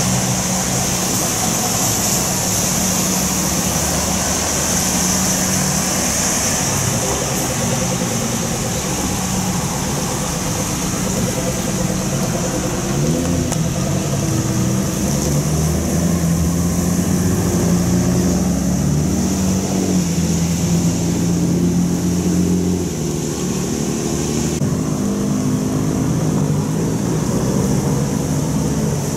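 Lowered custom cars idling and pulling away one after another on a wet road, with one engine revving up about 13 seconds in. A steady high hiss from the wet road runs under the engines.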